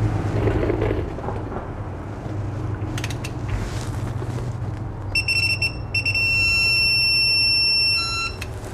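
Electronic beeping from a digital torque wrench as the differential plug is tightened to 56 N·m. A high tone pulses briefly about five seconds in, then holds steady for about two seconds and cuts off, the wrench's signal that set torque is reached. A steady low hum runs underneath.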